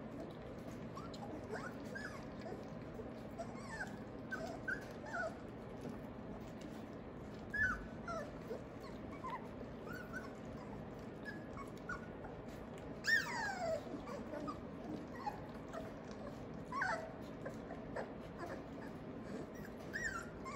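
A litter of three-week-old Australian Labradoodle puppies whimpering and squeaking in short, high yips scattered throughout, with one louder falling whine about two-thirds of the way through. Faint clicks and a soft thump come from the puppies feeding at a metal pan.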